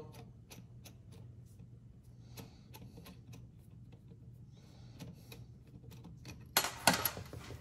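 Faint, irregular metallic clicks of a threaded eyelet rod being screwed by hand into a brake booster pushrod's tubular hex nut, with a louder burst of handling noise near the end.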